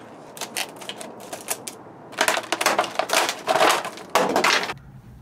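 Scissors snipping through a stiff plastic blister pack in a run of quick cuts, then loud crackling of the stiff plastic and bags as the packaging is pulled apart. It stops shortly before the end.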